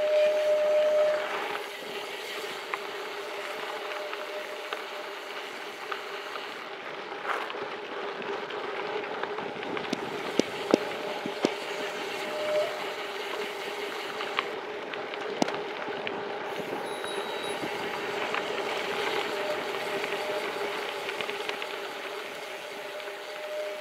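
Gravel bike rolling fast downhill on a packed dirt road: steady tyre rumble and wind rush, with a few sharp clicks and knocks from bumps about halfway through.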